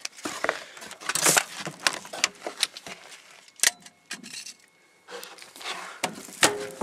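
Crinkling and rustling of crumpled aluminium foil, with irregular sharp clicks and clatter from handling.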